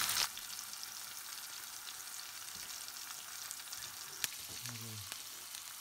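Food frying in hot oil in a frying pan: a steady sizzle from sausages, black pudding and haggis slices, then from whole mushrooms with thyme in oil and butter. The sizzle drops in level just after the start and then holds even, with one sharp click about four seconds in.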